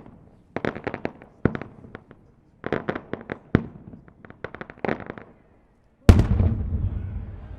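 Four-inch three-break aerial firework shell of gold glitter crossettes bursting: several clusters of quick, sharp crackling pops as the breaks open and the crossette stars split. About six seconds in comes one loud bang with a long rumbling echo, the shell's bottom shot.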